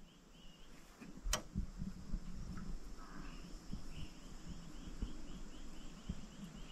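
A high animal chirp repeated about three times a second, with low knocks and rumbling, and one sharp click a little over a second in.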